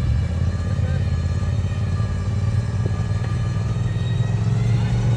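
Off-road vehicle engine running steadily at an even speed, a low continuous drone with no revving or impacts.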